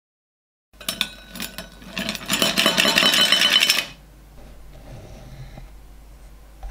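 A harsh, rattling tool noise of quick metallic clicks for about three seconds, loudest in its second half, that stops abruptly, followed by a quiet steady hum.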